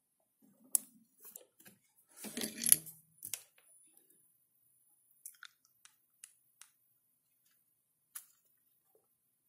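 Fingers handling a small LED bar-graph circuit board: a few sharp clicks and faint scattered ticks, with a short rustle about two and a half seconds in.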